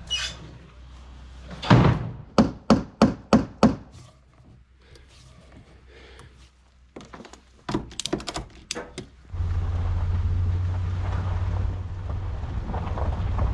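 A hammer driving nails into pine lumber: a run of about six quick, sharp blows, then after a pause another flurry of strikes. About nine seconds in, a steady low rumble of a pickup truck driving, with wind on the microphone, takes over.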